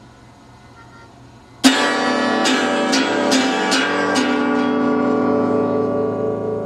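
Quiet room tone, then about a second and a half in, music starts suddenly: a guitar strummed about six times in quick succession, the chords then left ringing and slowly fading.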